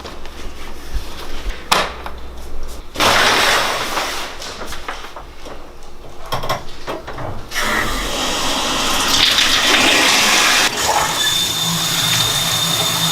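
Shower water running, starting about three seconds in and getting stronger about halfway through, with a few knocks before it starts.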